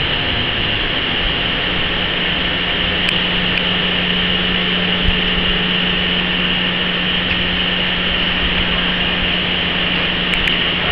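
Steady machinery drone in a factory hall: an even hiss with a constant low hum, and a few faint clicks now and then.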